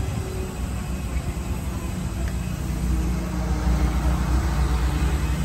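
Steady low rumble of a vehicle engine running nearby, getting a little louder about four seconds in.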